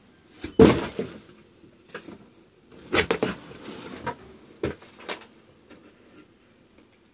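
Packaging being handled while unboxing, giving a few short rustles and knocks. The loudest comes about half a second in, a cluster follows around three seconds, and two more come a little later.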